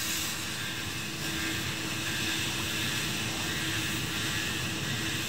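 Steady machine hum holding one constant tone, under an even hiss.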